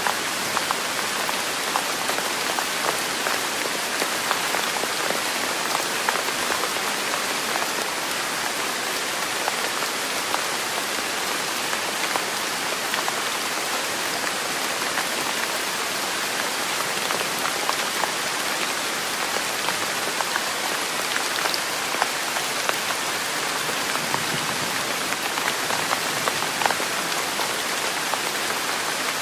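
Steady rain falling on a hard surface: a constant hiss dotted with many individual drops ticking.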